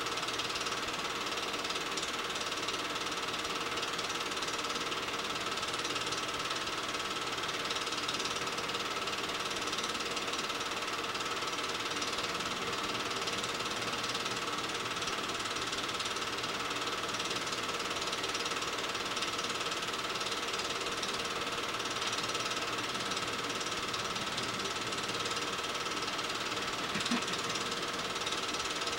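8mm film projector running: a steady, rapid mechanical clatter from the film-advance mechanism with a constant whine under it.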